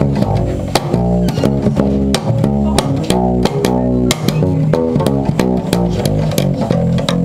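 The FishDrizzle Radiator, a homemade amplified stringed instrument, plucked by hand in a quick run of low, bass-like notes. Most notes start with a sharp click of the finger on the string.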